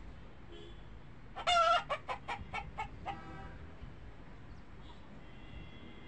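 A domestic fowl calling: one loud wavering call followed by about six short clucks that trail off.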